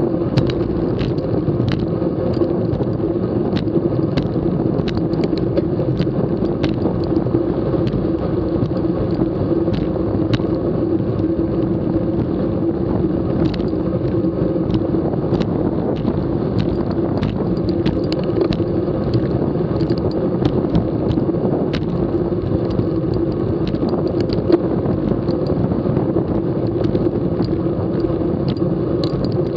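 Rolling noise of a bicycle on a concrete road, picked up by a camera mounted on the bike: a steady rushing hum with frequent small clicks and rattles.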